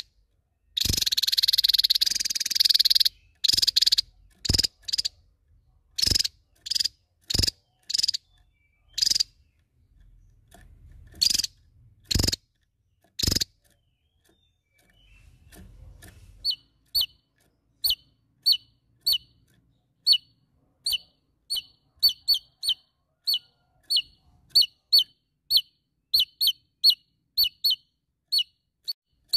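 Javan tesia calling hard: a loud, harsh burst of about two seconds, then a string of sharp single notes spaced irregularly. From about halfway it switches to a fast series of short, high, down-slurred notes, about two a second and speeding up toward the end.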